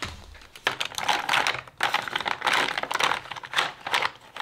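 Lipstick tubes and lip-gloss cases clicking and clattering against each other and the plastic bin as a hand rummages through the full box, in quick irregular rattles.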